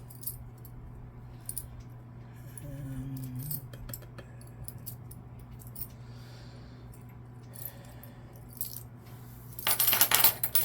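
Small metal tools and parts clinking and rattling as they are rummaged through, in scattered clicks with a louder burst of rattling near the end.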